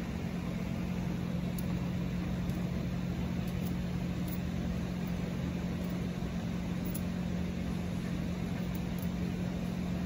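Steady low mechanical hum from a running machine, with a few faint light clicks.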